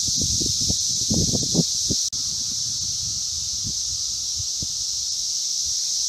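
Chorus of Brood V 17-year periodical cicadas (Magicicada) singing in the trees as a steady, high-pitched, unbroken drone, with some low rumbles in the first two seconds.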